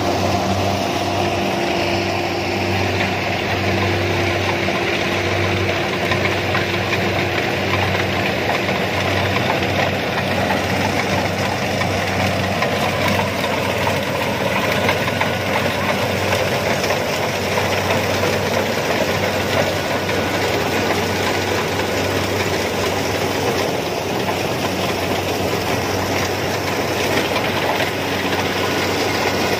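Kubota DC-70 combine harvester working through rice: its diesel engine running steadily under load, with the clatter of the cutting header and feeder taking in the stalks.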